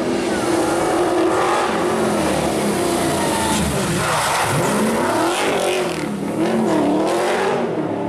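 Rally car engine running hard at high revs, its pitch steady for about four seconds, then dipping and rising again several times as the revs drop and pick back up.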